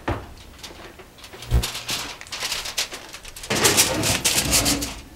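Oven door pulled down open with a low thump, then a foil-covered roasting pan slid onto the metal oven rack, the rack rattling and scraping for about a second and a half near the end.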